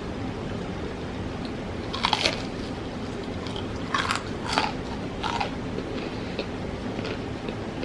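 Close-miked crunchy bites and chewing into KFC fried chicken tenders: a crunch about two seconds in, then a cluster of crunches a couple of seconds later and faint chewing clicks, over a steady low background hum.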